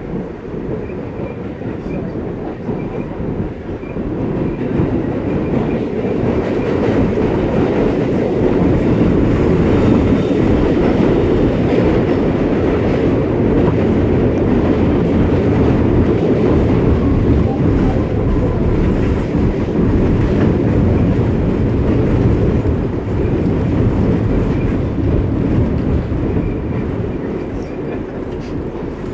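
New York City subway train running between stations, heard from inside the car: a steady rumble of wheels and motors that grows louder about four seconds in and eases off near the end.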